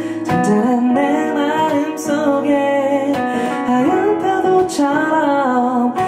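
A man singing a slow ballad while strumming a steel-string acoustic guitar.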